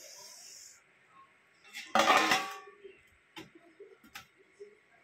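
Kitchen utensils handled on a cutting board: a short hiss at the start, a loud brief clatter about two seconds in, then two light clicks.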